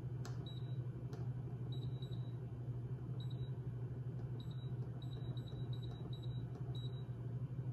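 Instant Pot electric pressure cooker's control panel giving about ten short high beeps, one per button press, as the cook time on the Soup program is stepped down from 20 to 10 minutes. The presses come faster in the second half. A steady low hum runs underneath.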